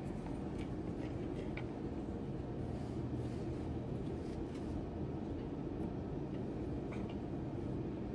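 Steady low background rumble, with a few faint light ticks from a wire and soldering iron being handled at a small circuit board.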